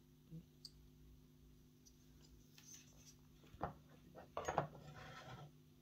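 Faint clicks of a cassette deck's plastic tape transport mechanism being handled, then a few sharper knocks and a short scrape a few seconds in as the transport is set down on a wooden bench.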